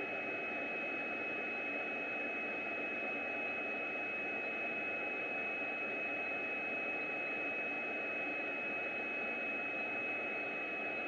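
Steady hiss with a constant high-pitched whine, with no distinct taps or clicks standing out.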